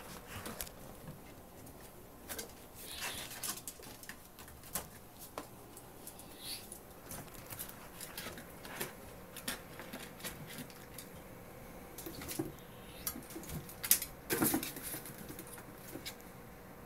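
Ferrets at play: soft clucking dook vocalizations mixed with the patter and scrabble of their paws and scattered knocks, busiest and loudest a couple of seconds before the end.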